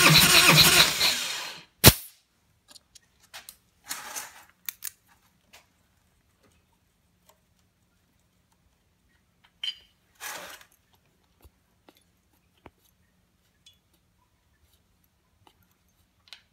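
Starter cranking the 2001 Harley-Davidson Fat Boy's Twin Cam 88B V-twin for a compression test, winding down about a second in; the gauge has risen to about 140 psi. A single sharp click follows, then faint clicks and rustling as the compression tester hose and plug lead are handled.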